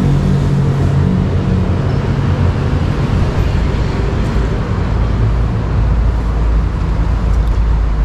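Road traffic on the bridge overhead: a steady low rumble, with a vehicle's engine hum fading out about a second and a half in and a deeper rumble swelling near the middle.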